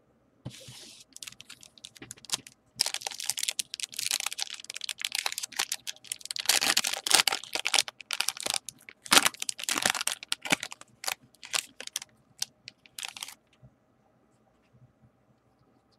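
Foil wrapper of a Bowman Platinum baseball card pack being torn open and crumpled in the hands, a dense run of crackles and crinkles that stops a couple of seconds before the end.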